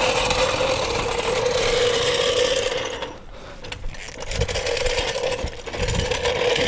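Impact wrench running in two runs, a steady buzzing hammer that stops about three seconds in and starts again about a second and a half later.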